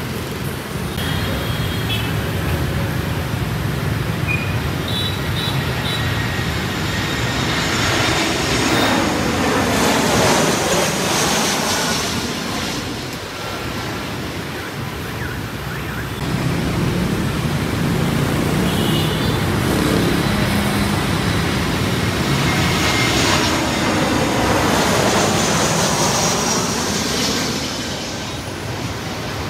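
Airbus A321neo jet airliner passing low overhead on landing approach: its engine noise swells and fades twice, over a steady rumble of street traffic.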